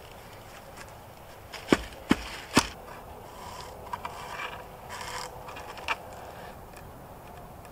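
Three sharp knocks within about a second, then scraping and rustling as a thin cord is pulled and wrapped around a tree trunk and a wooden support pole to lash them together.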